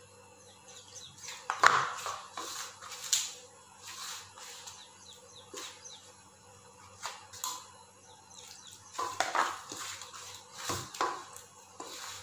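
Hands mixing and rubbing crumbly white maize flour with water in a stainless steel bowl: irregular rustling, squishing strokes, some with fingers scraping the metal, loudest about two seconds in and again around nine to eleven seconds.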